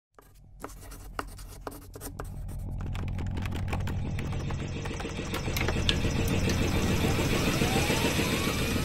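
Mechanical sound effects of turning gears: scattered clicks and ticks at first over a low machinery rumble that builds up and grows louder, with a rising whine in the last couple of seconds.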